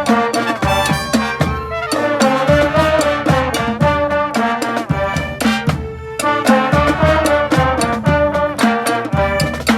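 Live street brass band playing: trumpets and trombones over a driving drum beat, with brief breaks about two and six seconds in.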